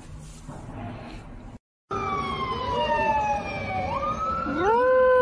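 A hound howling along with a siren's wail: the pitch slides slowly down, then a howl sweeps up about two and a half seconds after the clip starts and holds a steady note.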